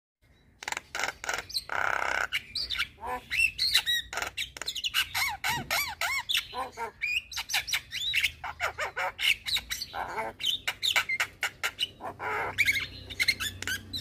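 Javan myna (jalak kebo) singing a fast, varied chatter of rising and falling whistles mixed with harsh squawks and clicks, starting about half a second in.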